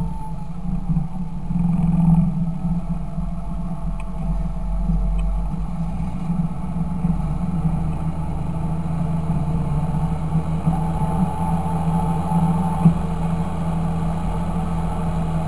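Fendt 926 Favorit tractor's six-cylinder diesel engine running steadily with a deep drone, with one short sharp knock near the end.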